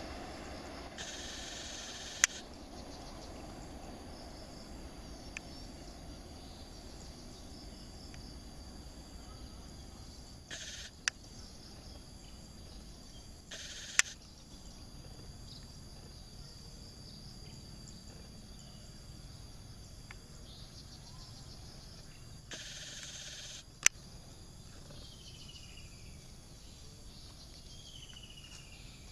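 Open-air rural ambience with a steady high insect drone. A distant train's rumble fades out over the first few seconds. Four short bursts of camera handling noise, each ending in a sharp click, are the loudest sounds, and a few falling bird chirps come near the end.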